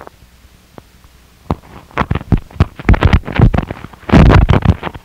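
Harsh noise music: loud distorted static and crackle coming in stuttering bursts. A few isolated clicks at first build into dense, jagged clusters and then a solid wall of noise about four seconds in, which cuts off abruptly near the end.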